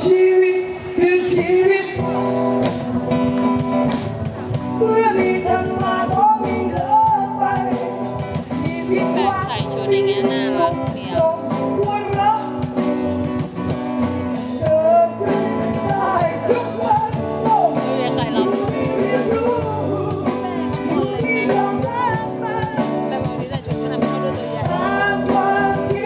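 Live band music: a singer sings into a microphone over guitars and drums.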